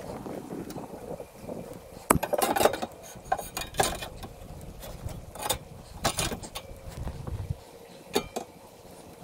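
Stainless steel davit tubing knocking and clinking as it is lifted and set in place: a string of sharp metal knocks, the loudest about two seconds in.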